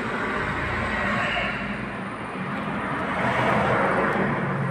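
Steady hum of road traffic and street noise, without a distinct event.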